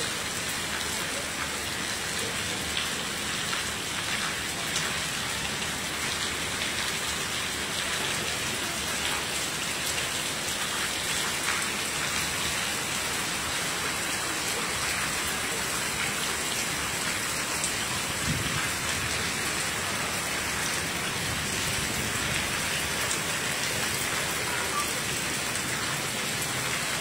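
Steady rain falling on a flat concrete rooftop, an even hiss of drops that holds the same level throughout.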